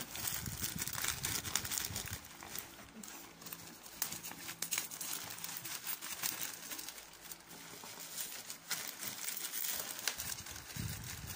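Plastic courier pouch crinkling and rustling in the hands as a cardboard box is pulled out of it, with many small crackles.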